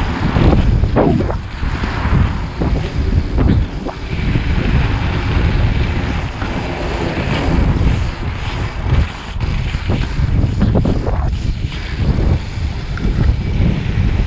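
Loud, uneven wind buffeting on the camera microphone over the rumble of inline-skate wheels, 80 mm urethane, rolling on rough asphalt.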